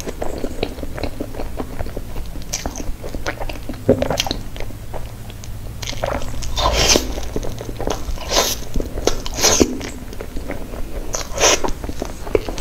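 Close-miked biting and chewing of a soft pink dessert dusted in white powder: wet mouth clicks and smacks throughout, with a few louder bites near the middle and toward the end.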